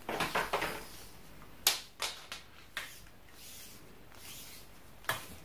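A soft tape measure being handled and wrapped around a waist over a T-shirt: fabric rustling with a few short sharp clicks, four in all, the last near the end.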